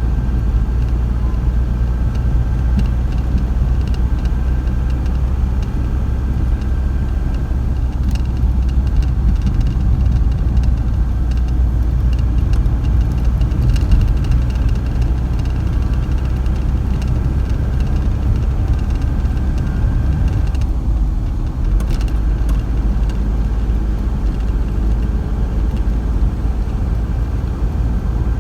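Steady low rumble of engine and road noise inside a van's cab while it drives along at speed.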